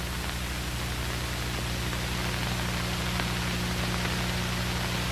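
Steady hiss with a low hum underneath: the noise floor of an old television soundtrack, with no other sound.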